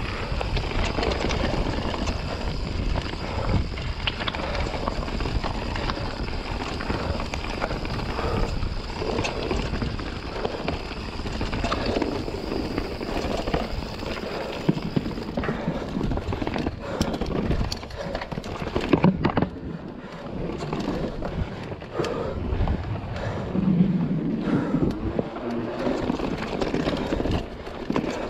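Full-suspension mountain bike descending a dirt trail: tyres rumbling over the ground and the bike clattering over roots and rocks, with frequent sharp knocks.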